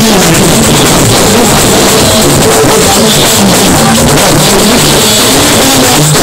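Live Fuji music played very loud: a singer's voice wavering over drums and band, recorded close and overloaded.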